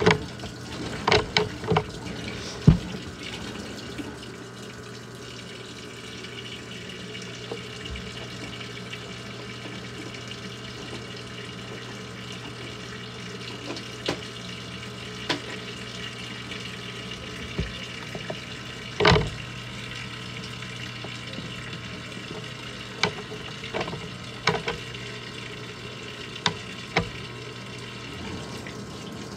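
Water pouring into a Maytag top-loading washer's tub as it fills, splashing onto wet cloths, over a steady low hum. A few sharp knocks stand out, several in the first three seconds and a louder one about 19 seconds in.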